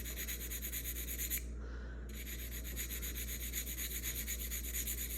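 Sharpening stone rubbing against the cutting edge of a Barnhart universal curette in quick repeated strokes, breaking off briefly about a second and a half in.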